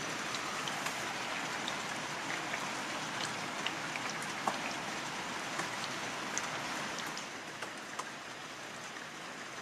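Steady rain falling, with scattered single drops tapping close by; it softens slightly near the end.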